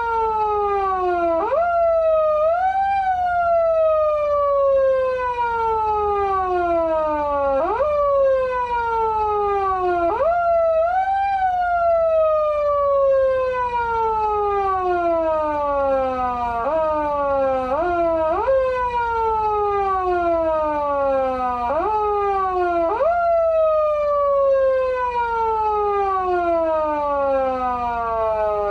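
Patlite SAP-500BK-PV siren amplifier in foot-siren mode, the Japanese emergency-vehicle wail worked by a pedal. Its pitch shoots up sharply and then sinks slowly, retriggered at uneven intervals of about one to five seconds, sometimes twice in quick succession.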